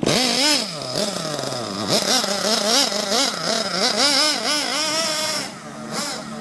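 Small .21 nitro engine of a 1:8 HSP Tornado RC car revving up and down in quick, repeated blips of throttle. It will not hold an idle: the owner has to keep blipping the throttle to keep it running.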